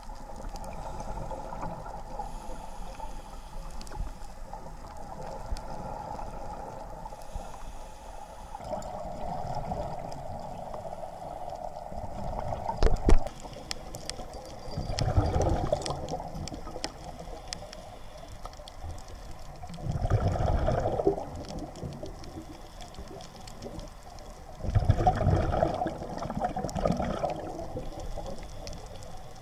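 Scuba diver exhaling through a regulator underwater: a gurgling rush of bubbles three times in the second half, about five seconds apart, over a steady underwater hiss. A single sharp knock comes shortly before the first exhale.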